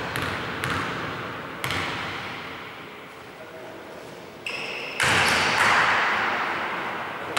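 A basketball bounced a few times on a hardwood gym floor at the free-throw line, each bounce a sharp thud. About four and a half seconds in comes a brief metallic ring of the ball hitting the rim, then a loud stretch of players' voices and movement as play breaks.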